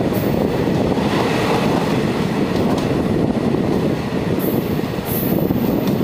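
Passenger train running at speed, heard from an open window of a coach: a steady, loud rumble of wheels on the track.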